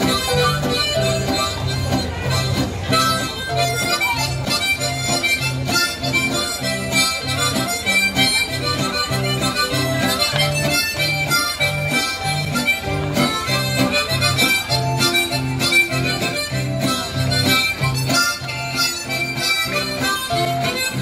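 Dance music playing with a steady, repeating bass beat of about two notes a second and a reedy melody over it.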